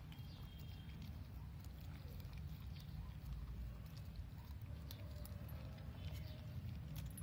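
Puppy licking and chewing a piece of sour grapefruit, a scattering of short wet clicks and smacks over a steady low rumble.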